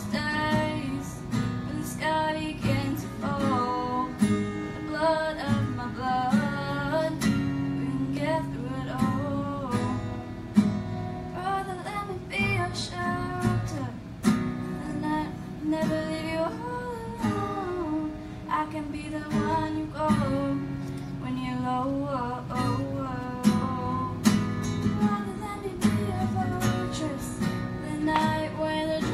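A woman singing to her own strummed acoustic guitar, a live solo performance through a small PA.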